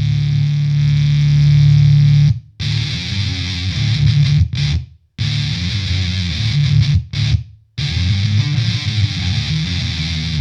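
Electric guitar played through a GameChanger Audio Plasma Coil, a fuzz pedal that drives the signal as a high-voltage spark through a xenon-filled tube, giving a thick, buzzy fuzz with a bright fizz on top. A chord rings for about two seconds, then short phrases are played, with the sound cutting off abruptly to silence three times.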